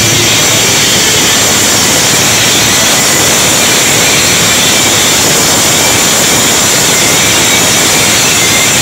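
Live metal band playing at full volume, distorted electric guitar over drums, so loud on the microphone that it blurs into a dense, even roar.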